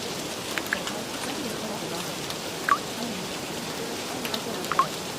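Steady rain ambience with a few sharp drips, over a faint murmur of layered voices repeating subliminal affirmations.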